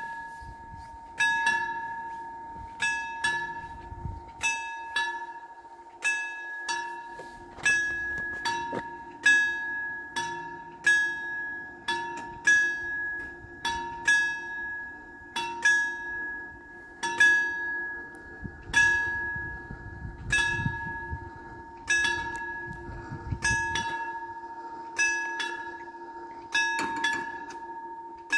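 Level crossing warning bells, two FS 64 units with the TM2000 electronic sound, ringing a steady run of dings about one and a half a second, each note ringing on and fading before the next. It is the warning that the crossing is closing for an approaching train.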